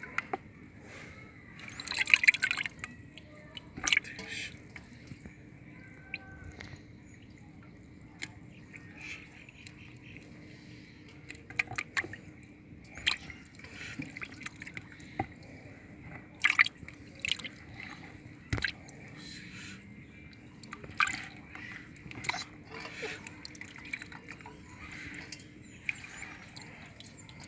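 Water splashing and dripping in a plastic tub as a hand scoops up featherback fingerlings and water runs off the palm: irregular splashes and drips, the loudest about two seconds in. A faint steady hum runs underneath.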